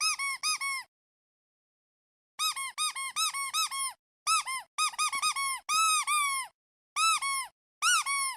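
Squeaky rubber duck toy being squeezed over and over: quick runs of short squeaks, each rising and falling in pitch, in bursts with silent pauses between them. A few squeaks near the middle are drawn out longer.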